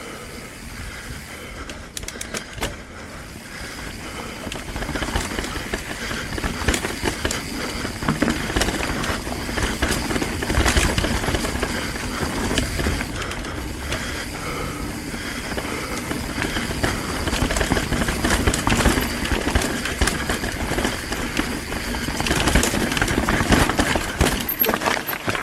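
Mountain bike running fast down a rough, rocky trail: the tyres roll and crunch over rock while the frame and parts rattle, with a steady low rumble underneath. The noise grows louder after the first few seconds.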